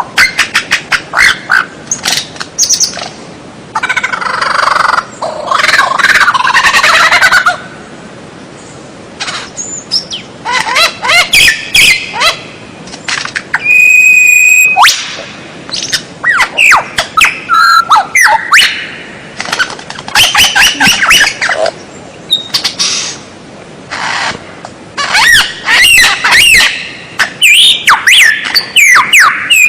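White-rumped shama singing a long, varied song: loud bursts of fast rising and falling whistles and harsh rattling chatter, broken by short pauses, with one held high whistle about halfway through.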